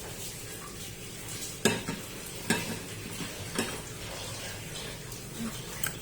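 Eggs being stirred and beaten in a bowl with a utensil, with about three sharper clinks against the bowl and a few softer taps over a faint steady hiss.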